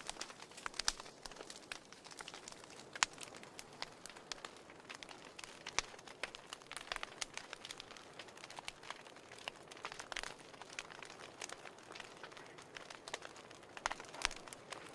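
Wood fire burning in a fireplace, crackling with irregular sharp pops and snaps over a soft hiss.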